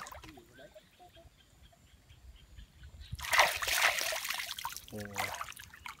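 Water splashing in a shallow muddy pool for about two seconds, starting about halfway in, as a catfish is pulled out of the water by hand.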